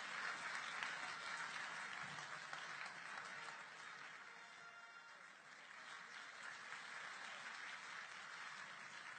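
Large audience applauding steadily, fairly faint, easing a little midway.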